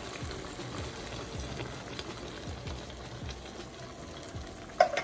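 Pan of curry grouper head simmering and bubbling on high heat as canned coconut milk is poured over it. A single short, sharp sound comes near the end.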